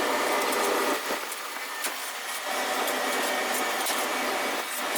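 Steady machinery noise of a coal-fired steamship boiler room, with faint scattered scrapes and clicks of a heavy ash hoe at work in the ash pit.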